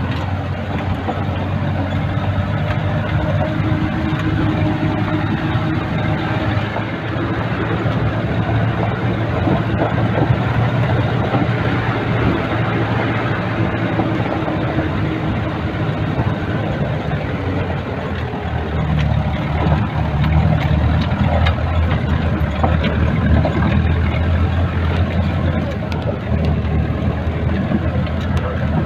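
4×4 jeep's engine running steadily as it drives over a rough gravel dirt track, with frequent small rattles and knocks from the jeep jolting over the stones.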